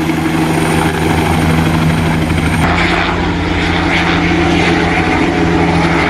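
Small two-bladed helicopter taking off and flying away, its rotor and engine giving a loud, steady drone. A thin high whine cuts off about halfway through.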